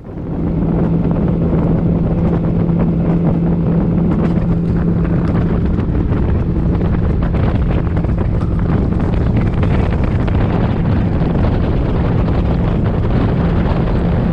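A boat's outboard motor running steadily at speed, with a steady low engine tone and heavy wind rushing over the microphone. It starts and cuts off abruptly.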